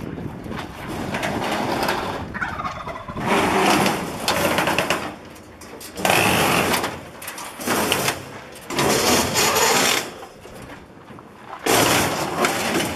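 Metal wire cage being pushed and shifted on a flatbed trailer's metal bed: repeated bursts of scraping and rattling, each lasting up to about a second and a half, with short pauses between them.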